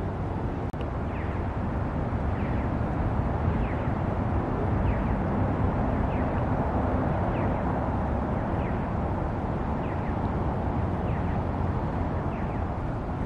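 Steady low rumble of outdoor city noise, with a bird's short high chirps repeating faintly about once a second.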